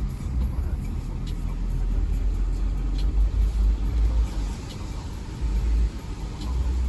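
A car driving, heard from inside the cabin: a steady low rumble of road and engine noise that swells and eases.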